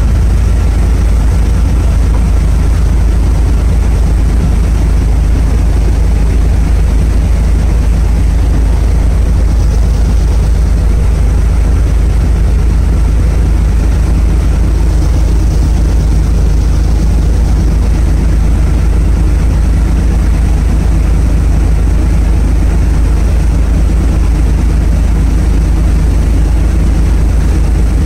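Small passenger ferry under way: its engine runs at a steady, loud low drone, mixed with the rush of water and wind.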